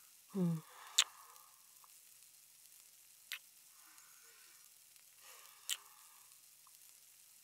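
A woman kissing: a short hummed 'mm' falling in pitch, then three sharp lip-smack kisses a couple of seconds apart, the first the loudest. Under them, the steady sizzle of bacon frying in a pan.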